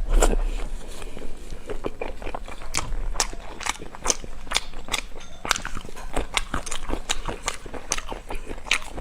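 Close-miked chewing and biting of beef tendon: a run of sharp, wet, crunchy clicks, about two or three a second, uneven in spacing.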